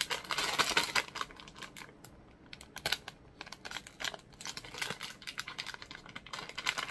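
Snack packet crinkling and crackling as it is torn open and handled. The crackles are dense in the first second, sparse in the middle and dense again near the end.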